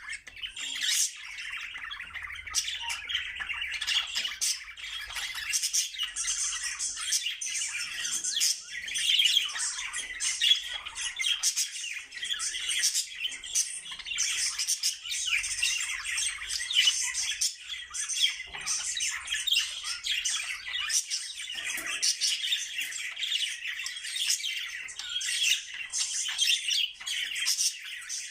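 Budgerigars singing: continuous warbling chatter with rapid chirps and squawks.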